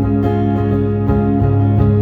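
Acoustic guitar strumming chords in an instrumental passage of a country-style song, with no voice.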